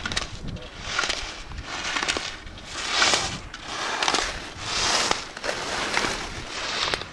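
Alpine skis carving turns on hard-packed snow: a scraping hiss from the edges swelling and fading about once a second, one swell per turn, loudest about three seconds in.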